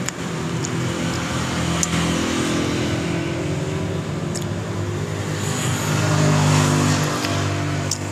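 An engine running steadily, with a few faint clicks over it.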